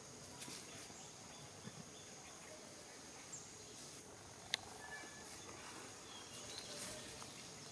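Faint outdoor background with a steady, high-pitched insect drone and brief rustles of dry leaf litter as young monkeys tussle on it. One sharp click about four and a half seconds in.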